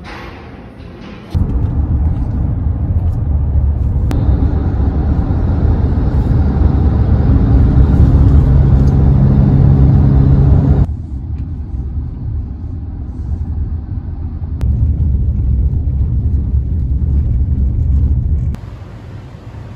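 Road and engine noise heard inside a moving car: a loud, steady low rumble with a faint hum. It starts and stops abruptly a few times.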